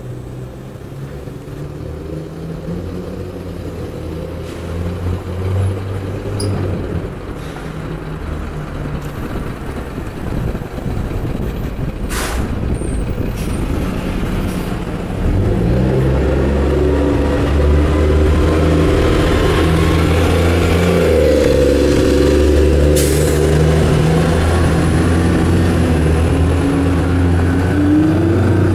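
Neoplan AN440 transit bus diesel engines running, growing louder and stepping up sharply about halfway through. Two short air releases from the air brakes come near the middle and about two-thirds in.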